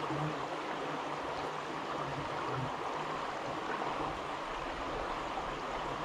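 Shallow creek water running steadily over a rocky bed, an even rushing burble. A low buzz, fitting bees flying close by, comes and goes several times.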